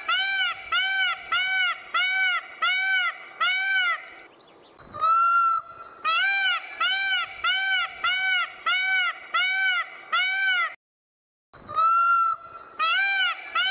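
Male Indian peafowl (peacock) calling: a long note, then a fast run of short rising-and-falling calls, about two a second. The sequence starts over about five seconds in, and again near twelve seconds after a moment of dead silence.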